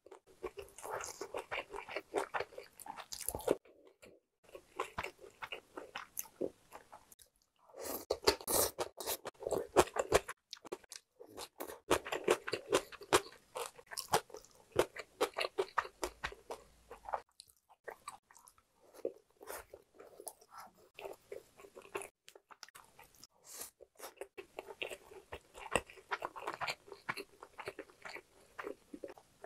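A person chewing and eating food, many quick clicks coming in runs broken by brief pauses.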